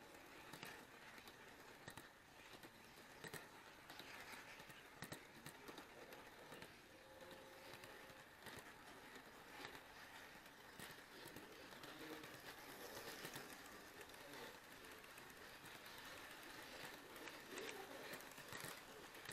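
Faint rolling of an HO-scale model railway camera car along the track, with small irregular clicks over a low hiss.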